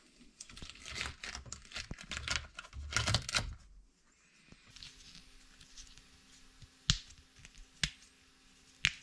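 Flexible TPU (NinjaFlex) Pop It print being peeled off the glue-stick-coated glass bed of a 3D printer, a dense crackling and tearing as it comes away. This is followed by three sharp single pops about a second apart as bubbles of the printed Pop It are pushed through.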